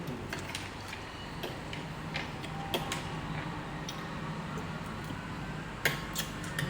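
Eating sounds: scattered small clicks and crunches of someone chewing and handling seafood papaya salad, a sharper click near the end, over a low steady hum.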